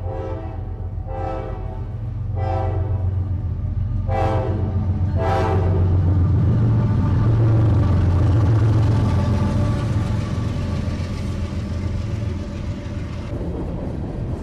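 Diesel freight locomotive's multi-tone air horn sounding a string of blasts, four after the tail of an earlier one, over the first six seconds. Under it the locomotive's engine rumbles, loudest as it passes about eight seconds in, then the freight cars rolling by.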